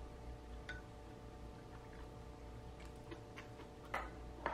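Light clicks of wooden chopsticks and a spoon against ceramic bowls during a meal, a few scattered taps with the two loudest near the end, over a steady low room hum.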